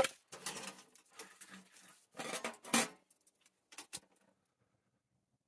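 Split firewood and kindling clattering and knocking as pieces are picked off a pile and pushed into the firebox of a small sheet-metal camp wood stove, with light clinks of wood on metal. The knocks come irregularly and stop about four seconds in.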